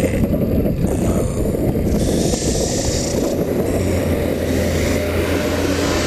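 Steady rumble of a vehicle driving on a snow-covered road, with a low steady hum for a second or so past the middle.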